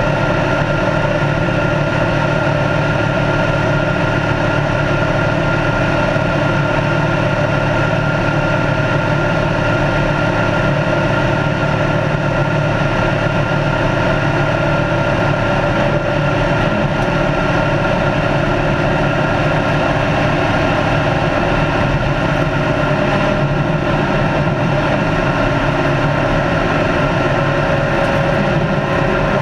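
Race car's engine running at a steady speed on the open road, its pitch holding level throughout, over a constant rush of tyre and wind noise.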